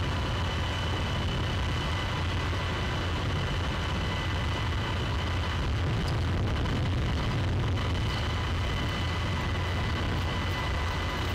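Fire engine's diesel engine running steadily at a fire scene, a constant low rumble with faint steady high-pitched tones above it.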